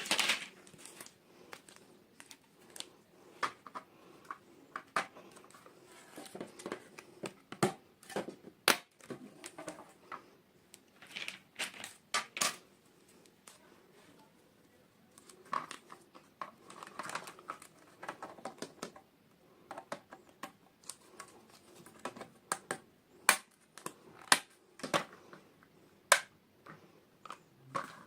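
Unboxing of small plastic toys: irregular clicks and taps of hard plastic pieces being handled, with short stretches of plastic packaging crinkling.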